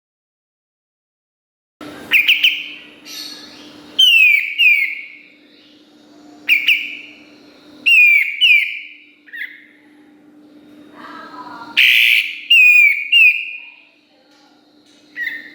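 White-shouldered triller (kapas tembak) singing: after about two seconds of silence, loud phrases of sharp falling whistles mixed with fast high chirps, repeated every second or two. A faint steady hum lies under the song.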